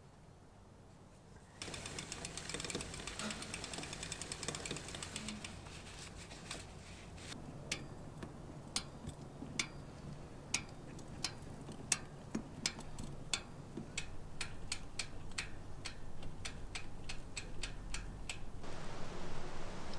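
Bicycle rear hub freewheel ticking as the cranks are turned backwards to work lube into the chain: a fast run of clicks that slows about six seconds in to sharp single clicks, two or three a second, and stops suddenly near the end.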